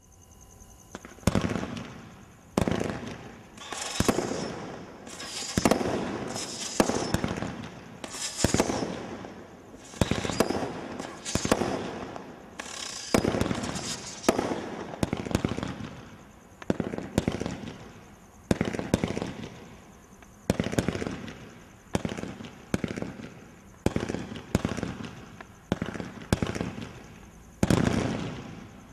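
Single-ignition firework cake (a 107-shot combination Roman candle barrage) firing shot after shot, about one sharp bang a second from about a second in. Several of the bursts are followed by a hissing crackle from crackling stars.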